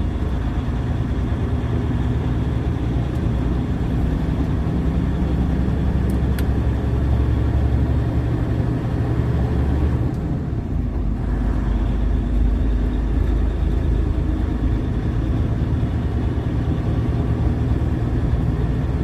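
Semi truck driving, heard from inside the cab: steady low diesel engine running with road noise, and a brief change in the engine note about halfway through.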